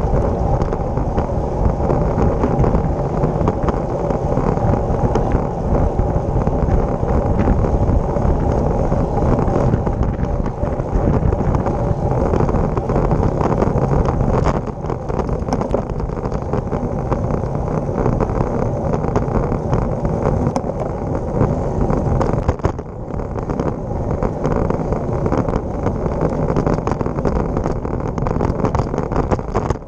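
Wind rushing over the microphone of a handlebar-mounted camera on a moving road bike, mixed with tyre and road noise, a steady loud rumble. It eases slightly about fifteen seconds in.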